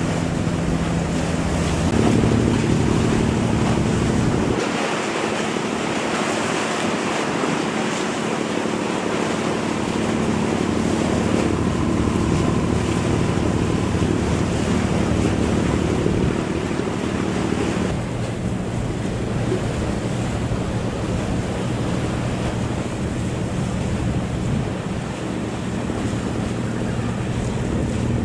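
Fishing boat engine running with a steady low hum, under wind noise on the microphone and rushing water. The engine hum changes abruptly a few times.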